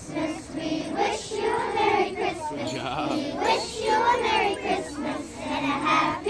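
A group of children singing a Christmas carol together.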